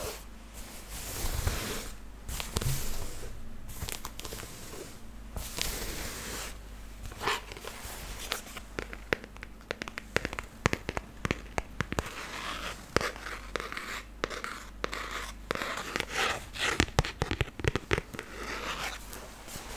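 Denim jeans rubbed and folded close to the microphone: swishing fabric noise in the first half. Then fingernails tapping and scratching on a small black hard object, with quick irregular clicks through the second half.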